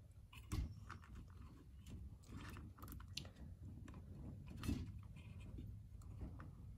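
Mini hot glue gun being squeezed, its trigger feed clicking and creaking irregularly as the glue stick is pushed through and hot glue is squirted into the hole of a stainless tumbler. A couple of clicks, about half a second in and near the end, stand out.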